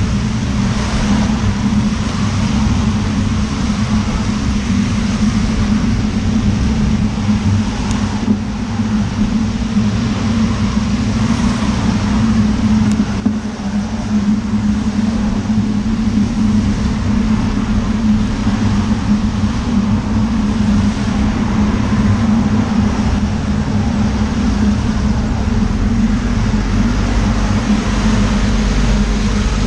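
Steady road noise from cycling on a wet road in the rain: a continuous rumble and hiss of tyres and motor traffic, with cars and a lorry passing close by.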